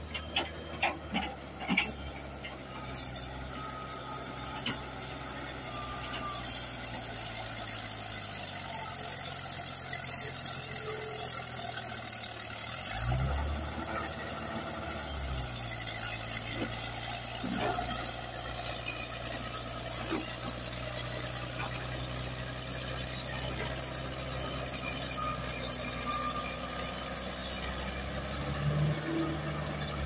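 Caterpillar D6D bulldozer's diesel engine running steadily as the dozer pushes wet clay. There are several sharp knocks in the first two seconds, and the engine note deepens and swells briefly about thirteen seconds in.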